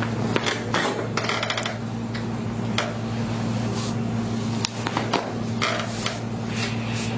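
Scattered short rustles, clicks and light knocks over a steady electric hum, including a quick run of fine clicks about a second in.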